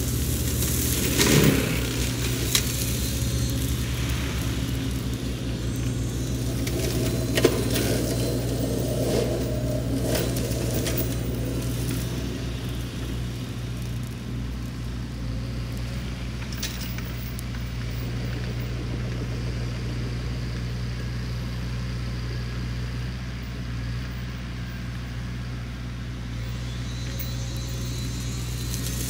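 Sany SY50U mini excavator's diesel engine running steadily while its flail mulcher shreds brush. Sharp cracks and snaps of wood come through, the loudest about a second in and again at about seven seconds.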